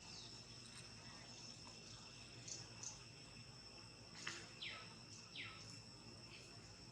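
Faint, steady high-pitched insect drone, with a few short calls falling in pitch in the middle.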